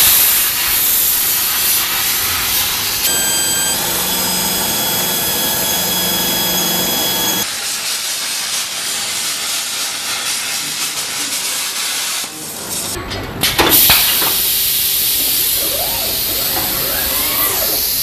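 Car body-shop noise in a run of cuts: welding and grinding on steel body parts give a loud, steady hiss. A steady machine whine with a low hum joins about three seconds in and stops about four seconds later. A sharp clank comes about three quarters of the way through, followed by more hissing.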